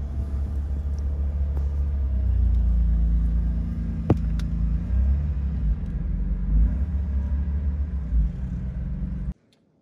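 Ford F-150 pickup's engine idling, a steady low rumble heard from inside the cab, with a sharp click about four seconds in. The sound cuts off abruptly near the end.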